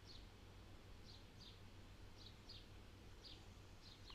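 A small bird chirping faintly: short downward chirps, mostly in pairs, about once a second, over a faint steady low hum.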